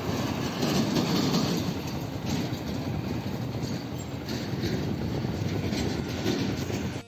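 Road traffic noise as a coach bus pulls away close by, its engine running; loudest about a second in, then easing slightly as it draws off.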